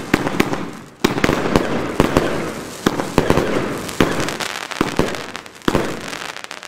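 Röder Alpha Centauri compound fireworks battery firing: a rapid string of sharp launch reports and star bursts over a steady hiss. A fresh surge of shots comes about a second in, after a short dip.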